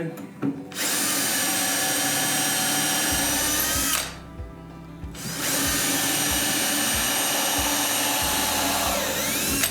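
Power drill running twice, each run lasting about three to four seconds, as it bores knob holes in a drawer front. The motor winds down near the end.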